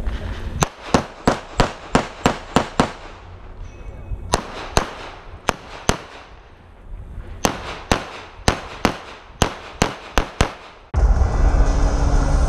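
Rapid semi-automatic pistol shots from a USPSA Limited-division course of fire: three quick strings of about eight, five and ten shots, several a second, with short pauses between. About eleven seconds in, logo music cuts in abruptly.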